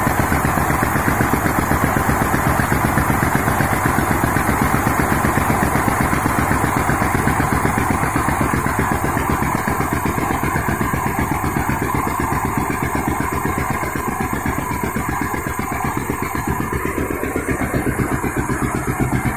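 18 HP diesel engine running steadily under load, driving a water pump through a long shaft, with a rapid, even firing beat.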